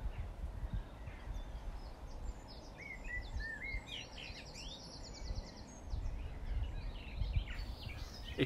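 Birds chirping, with a cluster of short up-sweeping notes about three seconds in and a fast trill just after, over a low, fluttering outdoor rumble.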